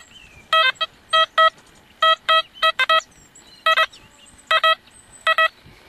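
XP Deus metal detector's remote unit sounding short target beeps through its speaker, all at one steady mid pitch, repeating in quick pairs as the coil sweeps back and forth. The paired beeps mark a double target, two signals lying side by side, which proved to be two pieces of folded silver paper.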